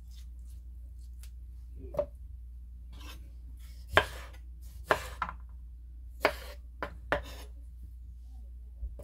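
Chef's knife cutting through stone fruit and striking a wooden cutting board: about seven separate chops, the loudest about four seconds in.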